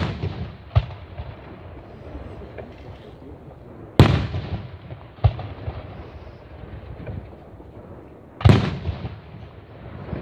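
Aerial firework shells bursting: loud bangs about four seconds in and again about eight and a half seconds in, with smaller reports near the start and at about five seconds, each followed by a fading echo.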